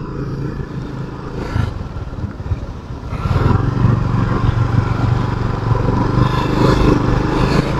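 Motorcycle engine running under way, getting louder about three seconds in as the bike picks up.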